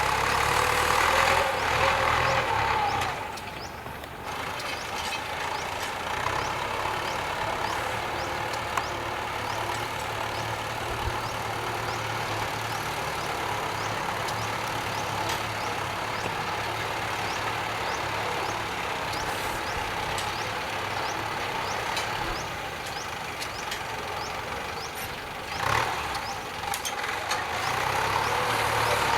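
Kubota M9540 tractor's diesel engine running under load while ploughing. It is louder, with a whine, for the first three seconds and again near the end, and quieter and steady in between.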